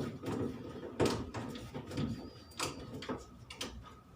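A screwdriver working on the back-cover screws of a washing machine's plastic casing: about half a dozen sharp clicks and knocks, irregularly spaced.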